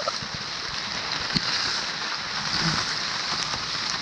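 Small waterfall pouring straight down onto a person standing under it: a steady rush of falling water, with close droplets ticking against the camera.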